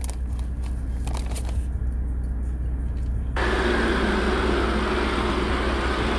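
Low, steady rumble of drag cars' engines idling, heard through a live-stream feed. A wider rushing noise comes in about three seconds in and holds steady.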